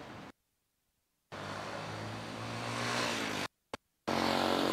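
A motor vehicle engine running and growing louder, broken by abrupt cuts to dead silence, with a single click in the second gap.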